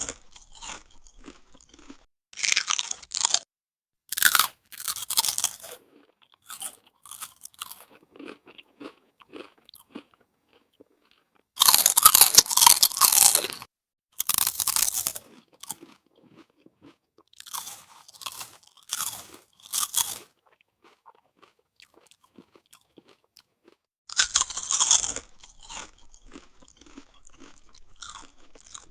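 Potato chips being eaten: loud crisp crunches as chips are bitten, followed by quieter chewing, in several rounds.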